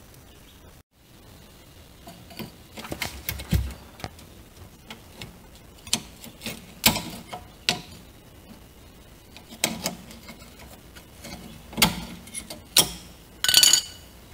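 Irregular metallic clicks and knocks of hand work at a 2001 VW Golf's rear brake caliper as the parking-brake cable end is unhooked from the caliper's lever, with a short, louder scraping rattle near the end.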